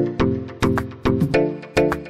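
Background music: a quick run of plucked notes, each starting sharply and fading before the next, about four or five a second.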